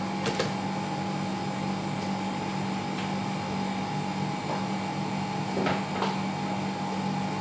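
Steady mechanical hum of a running fan, with a light click near the start and two more near the end as a kitchen cupboard is handled.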